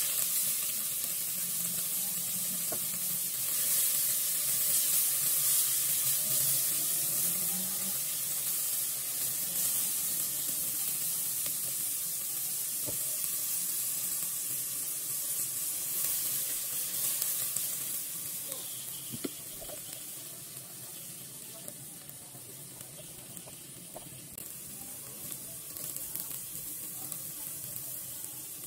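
Sliced onions sizzling in hot ghee in an aluminium pot, being fried into birista, with a few light knocks of a spatula. The sizzle grows quieter in the last third.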